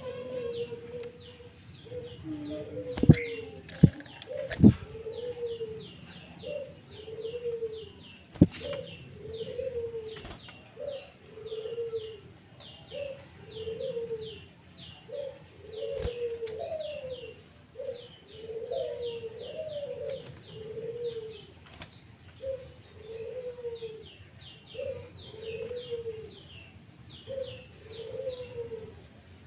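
Birds calling: a low note repeated about once a second, over a steady run of rapid high chirps. A few sharp, loud knocks come in the first nine seconds.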